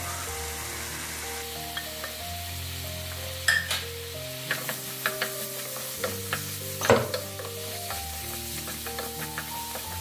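Prawns in masala gravy sizzling in a non-stick frying pan while a wooden spatula stirs them, with knocks and scrapes against the pan. The knocks start about three and a half seconds in; the loudest comes near seven seconds.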